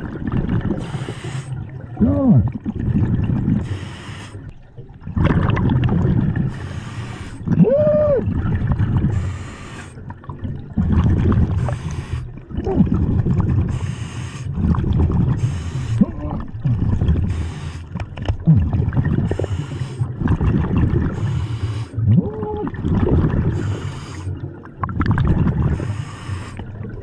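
A scuba diver breathing through a regulator under water, heard close by. Hissing inhales alternate with gurgling, bubbling exhales about every two and a half seconds, and now and then a short moaning tone rises and falls.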